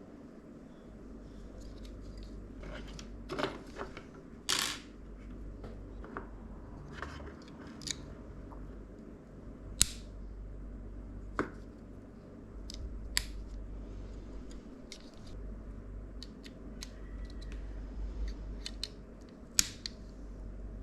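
Hands assembling a PC: scattered sharp clicks and snaps of plastic and metal parts with some handling rustle, over a low steady hum.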